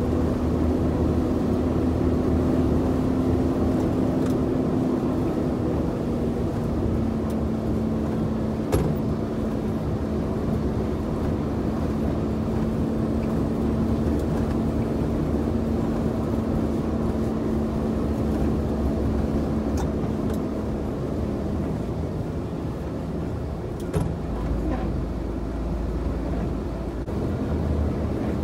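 Truck engine running at a steady cruise, with tyre and road noise from a wet highway, heard from inside the cab. The engine drone holds one tone that drops slightly a couple of times, with a sharp click about a third of the way in and another near the end.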